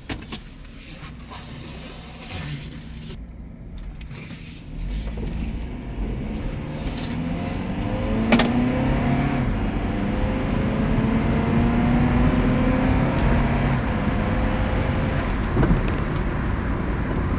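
2009 Honda CR-V's four-cylinder engine accelerating, heard from inside the cabin with road and tyre noise. Fairly quiet for the first few seconds, it grows louder about five seconds in, and the engine note rises twice as the revs climb.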